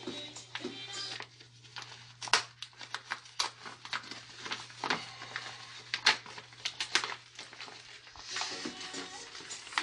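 Plastic packaging crinkling and rustling as it is handled and opened, with irregular sharp crackles.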